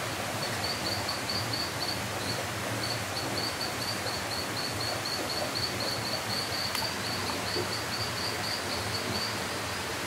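Steady rushing of a forest stream, with a small animal's high chirp repeated about five times a second through most of it.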